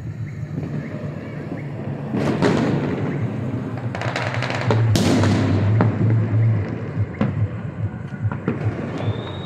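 Distant fireworks going off over a city: many sharp cracks and pops, with two louder bursts of crackling about two and five seconds in.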